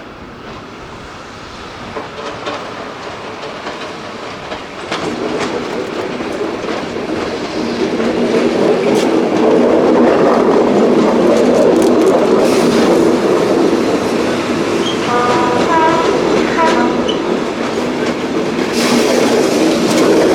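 GBRF Class 73 electro-diesel locomotives approaching and passing, their sound growing from about five seconds in to a loud, steady drone with wheels clattering over the rail joints. A brief two-note tone sounds about fifteen seconds in.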